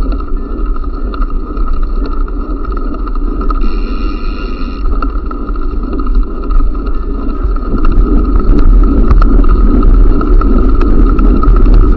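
Wind buffeting the microphone during a bike ride, with a rumble that gets louder about eight seconds in. Scattered clicks come through, from the freewheel of a jump bike's rear hub.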